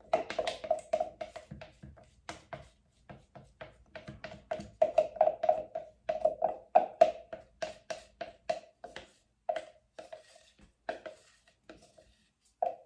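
Thick paint being poured from a plastic measuring cup into a plastic pitcher and scraped out of the cup with a wooden stir stick, making an irregular run of wet plops and taps, several a second, each with a short ringing note.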